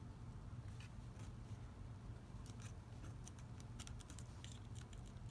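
Faint light clicks and rustles of card being handled and pressed into place, growing busier after about two and a half seconds, over a low steady hum.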